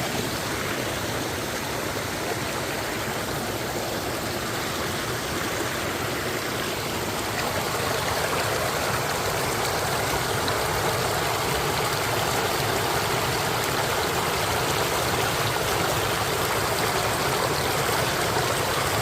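Water flowing steadily with an even rush and trickle, growing a little louder about eight seconds in.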